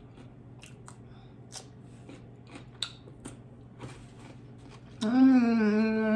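Close-up chewing, with small sharp crunches and mouth clicks of food being eaten. About five seconds in, a loud, steady hummed 'mmm' of enjoyment begins and is held.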